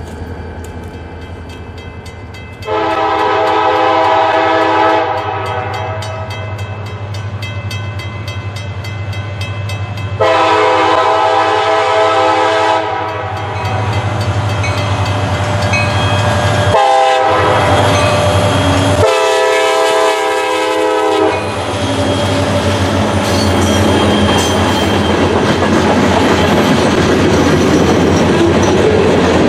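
CSX freight diesel locomotive's air horn sounding two long blasts, a short one and a long one, the grade-crossing signal, over the steady rumble of the approaching train. After the last blast the train's cars roll past loudly.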